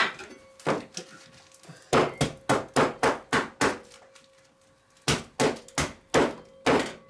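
Double-bit axe chopping through a package of sausage onto a wooden butcher-block counter: a single strike, then a quick run of about seven blows at about four a second, a pause, and about five more.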